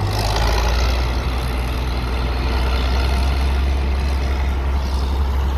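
Vintage farm tractor engine running steadily with a deep hum.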